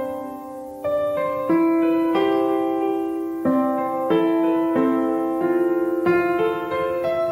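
Background piano music, slow and gentle: single notes and soft chords struck about once a second, each left to ring and fade.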